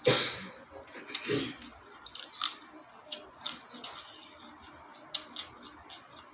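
Eating sounds: a sudden loud burst at the start and another about a second later, then a run of short, crisp clicks and smacks from chewing and biting.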